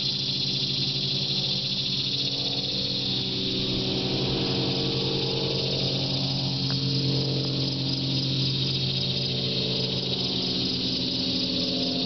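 Chorus of annual cicadas in the surrounding trees, a continuous high-pitched buzzing drone that holds steady throughout. Under it runs a low, steady droning hum.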